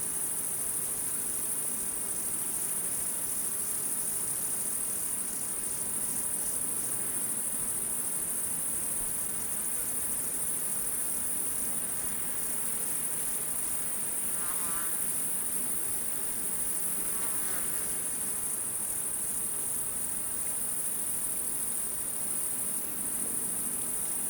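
Crickets chirping in a steady, continuous high-pitched chorus.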